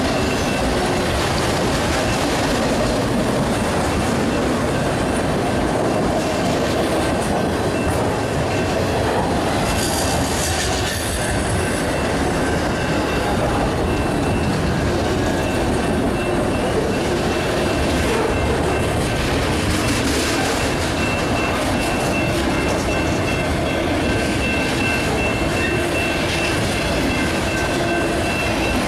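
Intermodal freight train cars rolling past: a steady rumble of wheels on rail with scattered clicks and a faint, steady high-pitched wheel squeal.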